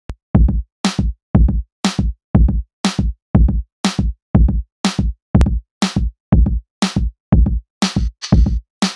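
Electronic background music with a drum-machine beat: alternating kick and snare hits at about two a second, joined by a hissy cymbal layer near the end.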